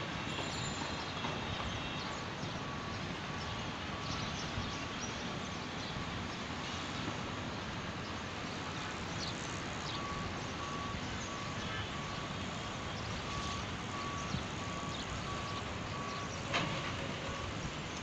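Steady running noise of a moving vehicle heard from inside, with a faint beep repeating over and over through most of it and a single sharp knock near the end.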